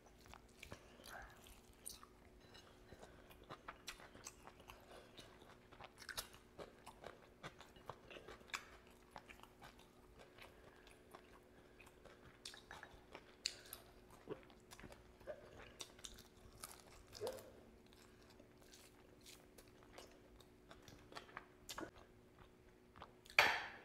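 Close-miked chewing, biting and mouth clicks of a person eating rice, curry and grilled chicken by hand, over a faint steady hum. Near the end a louder, short wet burst as gravy is poured from a bowl onto the rice.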